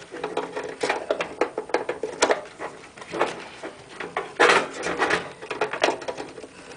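Irregular clicks, knocks and rustles of hands handling parts and cables inside a computer case, with a louder cluster of knocks about four and a half seconds in.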